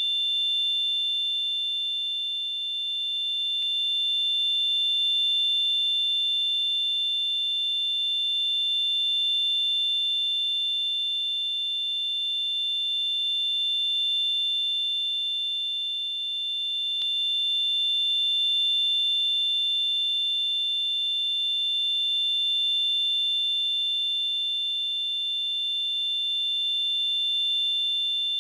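Simulated tinnitus: a steady, high-pitched electronic ringing made of two close tones, with a faint hiss above. Its loudness swells and eases slowly every few seconds.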